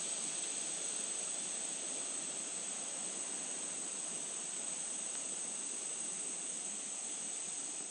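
Steady high-pitched drone of an insect chorus in woodland, over a faint even hiss.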